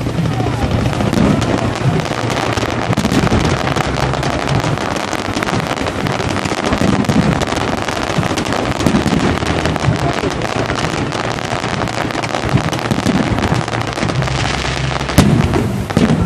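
Fireworks display: a dense, continuous barrage of crackling and bangs, with one sharp loud bang near the end.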